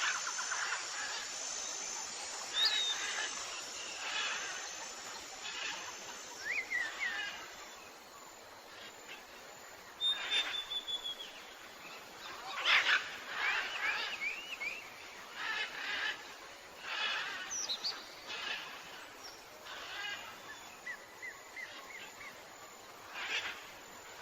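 Several birds chirping and calling, short whistled notes and chirps, some gliding up or down in pitch, repeating irregularly about once a second over a faint steady hiss.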